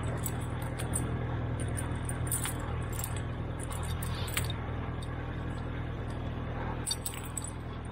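Steel skidding chain clinking and rattling, link against link, as it is wrapped around a firewood log. Underneath is the steady low hum of a 1949 Farmall Cub's four-cylinder flathead engine idling.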